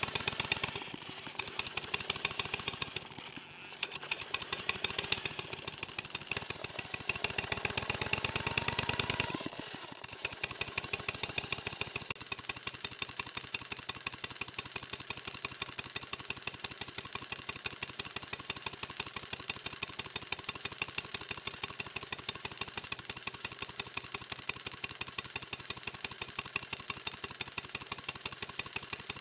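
Model steam engine running on compressed air, a fast, even beat of exhaust puffs and mechanism. It slows and picks up several times in the first ten seconds, then holds a steady speed under its working Watt centrifugal governor.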